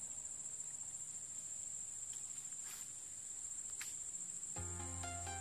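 Steady high-pitched insect buzz, crickets or cicadas. Music comes in near the end.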